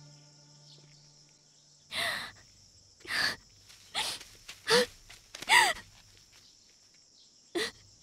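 A woman's tearful gasps and sobbing breaths, about six short bursts, over a steady high chirring of crickets. Soft background music fades out at the start.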